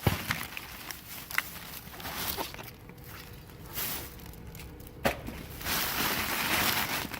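Rummaging through dumpster contents: rustling of bags and packaging with a sharp knock at the start and another about five seconds in, then a longer stretch of rustling near the end.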